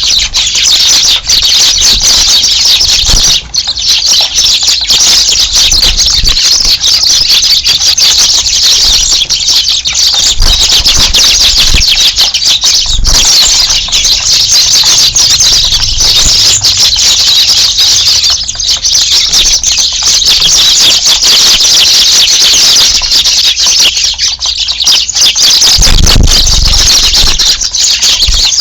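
A large flock of Eurasian tree sparrows chirping loudly and continuously, many calls overlapping into one dense chatter. There are a few low thumps in between, the strongest near the end.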